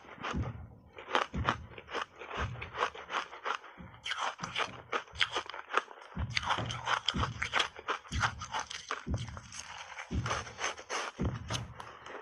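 Ice chunks coated thickly in milk powder being crunched and chewed close to a clip-on microphone: a dense run of sharp cracks and crunches over a dull thud with each chew, about one a second.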